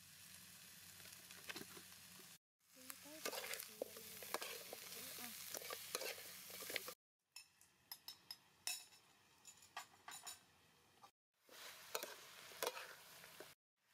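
Chicken feet sizzling in a metal wok while a metal spatula stirs and scrapes through them, with scattered clicks of the spatula on the pan. The sound comes in several short stretches broken by brief silent gaps.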